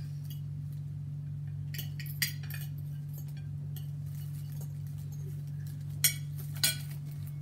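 Light clinks and clatters of cutlery and food containers as food is picked from party trays, a few at a time, with the two sharpest knocks about half a second apart near the end. A steady low hum runs underneath.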